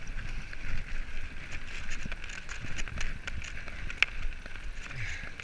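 Mountain bike rolling fast down a gravel track: steady tyre noise on loose gravel and the bike rattling over the bumps, with scattered sharp clicks and a louder knock about four seconds in. Wind buffets the microphone.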